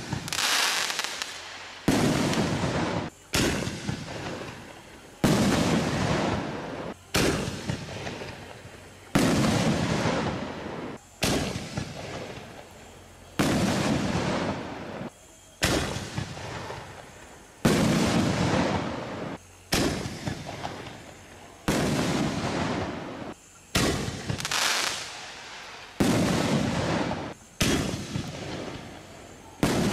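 Reloadable consumer artillery shells going off one after another, about fifteen sharp bangs roughly every two seconds, each fading away over a second or two.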